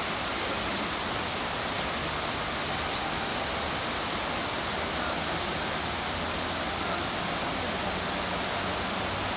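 River water rushing over a shallow stony riffle: a steady, even rushing noise.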